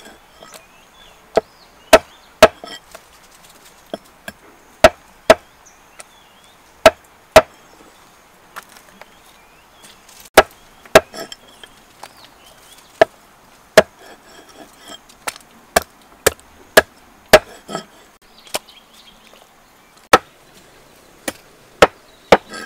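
A cleaver chopping raw frogs into pieces on a wooden chopping block. The chops are sharp and come irregularly, often in pairs about half a second apart, with short pauses between.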